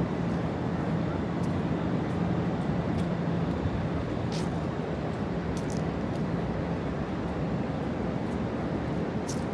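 City street traffic noise: a steady rumble of passing vehicles with a low hum that fades out about halfway through, and a few faint sharp clicks.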